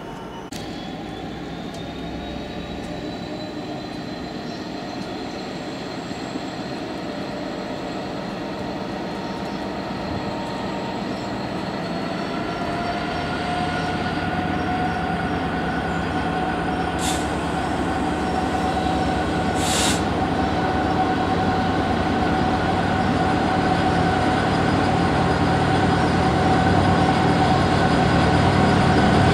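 Class 66 diesel locomotive's two-stroke V12 engine working hard as it hauls a container train, growing steadily louder as it approaches, with a steady whine whose pitch rises slightly. Two short hisses are heard near the middle.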